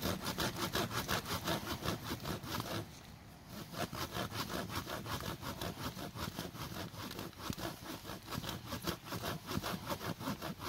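Saw-toothed spine of a 22-inch machete sawing back and forth through a log in quick, even strokes, with a brief pause about three seconds in.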